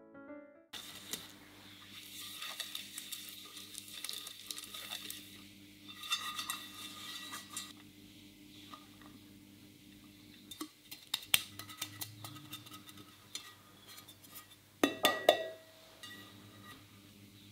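Metal cake pans being floured by hand: rustling and scratching as flour is sprinkled in and worked around the pans, with scattered light clinks, then a quick run of loud knocks with a short metallic ring about 15 seconds in as a pan is handled and tapped to shake out the excess flour.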